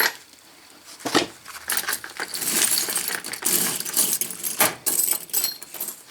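A bunch of metal keys, many of them uncut blanks, clinking and rattling together as they are handled. There is one clink at the start, then a short lull, then a steady run of clinks from about a second in.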